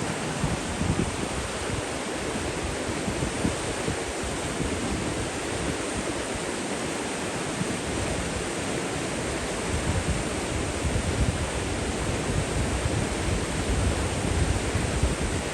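Steady rush of running water: a continuous even hiss with a low rumble that swells and fades.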